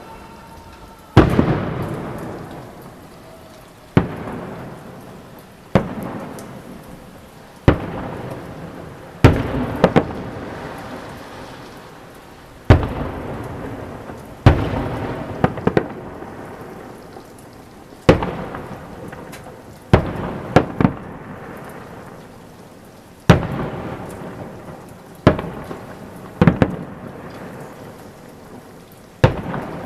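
Fireworks salute shells bursting overhead: a loud bang every two seconds or so, about fifteen in all, each trailing off in a long rolling echo.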